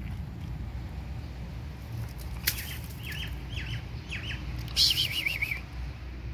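A small bird calling: a run of about five short, falling chirps, then a brief loud rustling burst with a quick warbling trill.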